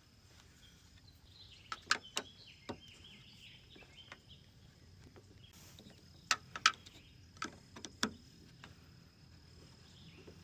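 Scattered sharp clicks and light taps, a dozen or so spread unevenly, with birds chirping faintly over the first few seconds.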